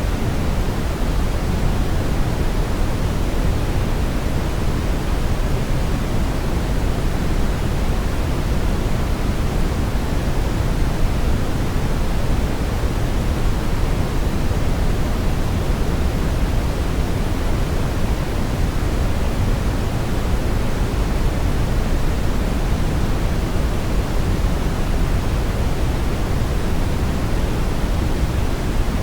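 Brown noise: a steady, unbroken hiss-like rumble, heaviest in the low end and thinning toward the top.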